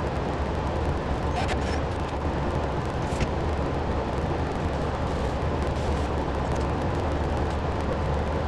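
Steady hum and noise of running shop machinery, with a few faint short rasps about one and a half and three seconds in.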